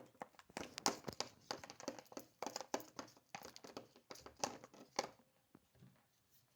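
Plastic containers being handled, with the paint bottle opened and poured over the slime bowl: a dense run of small clicks and crinkles that dies away after about five seconds.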